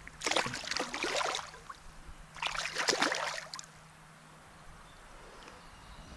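Water splashing in two bursts of about a second each, a sea-run cutthroat trout thrashing at the surface on the line.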